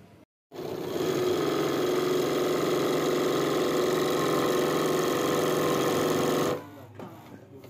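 Embroidery sewing machine running steadily at an even speed, starting about half a second in and stopping abruptly about six and a half seconds in.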